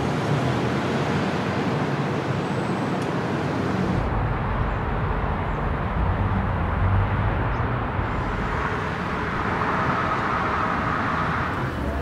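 City street ambience dominated by traffic noise, played as three short recordings cut one after another, with the sound changing abruptly about four and eight seconds in.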